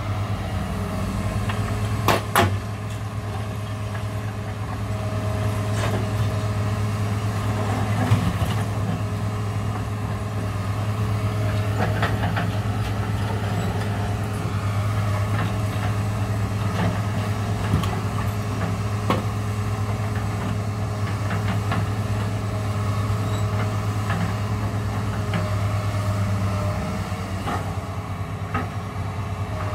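New Holland E245 crawler excavator's diesel engine running steadily as it loads demolition rubble into a dump truck, with occasional sharp knocks and clatters of broken masonry. The engine note eases slightly near the end.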